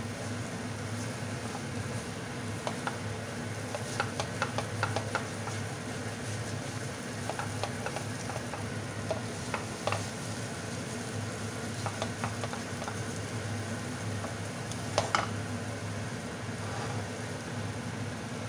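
Wooden spatula stirring and scraping thick suji halwa (semolina in ghee) around a nonstick frying pan, with soft sizzling and scattered sharp taps of the spatula against the pan. The loudest clack comes about three-quarters of the way through, over a steady low hum.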